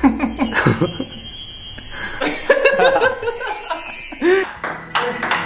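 A man laughing in two stretches, with a high twinkling chime effect over the first half.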